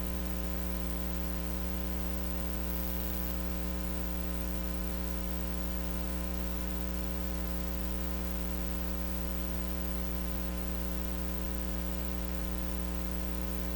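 Steady electrical mains hum with a stack of buzzing overtones, unchanging throughout; no other sound comes through.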